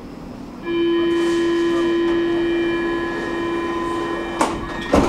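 Stockholm metro train's door-closing warning: a steady buzzing tone with overtones sounds as the doors slide shut, ending in two knocks near the end as the door leaves close, the second the louder.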